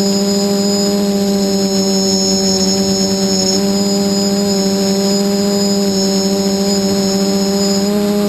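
Quadcopter in flight: four SunnySky 2216 800KV brushless motors spinning 8x4.5 carbon propellers give a steady, loud buzzing whine of nearly constant pitch that shifts slightly near the end as the throttle changes.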